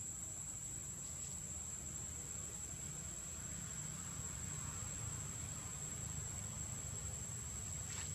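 Steady high-pitched insect drone over a low, even rumble, with a brief faint rustle near the end.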